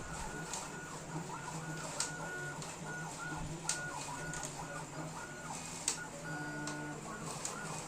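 CO2 laser cutting and engraving machine running a job: its stepper motors whine in short high tones that start, stop and shift pitch as the head moves, over a steady low hum, with scattered sharp clicks.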